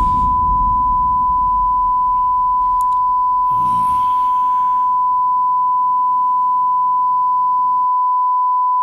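A single steady high-pitched sine tone, the ear-ringing effect of film sound design, held unchanged over a low rumble that fades away and drops out near the end.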